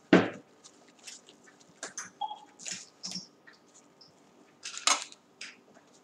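Thin paper of an emptied tea bag rustling and crinkling as it is handled and opened out into a tube, in short irregular bursts, the strongest at the very start and again about five seconds in.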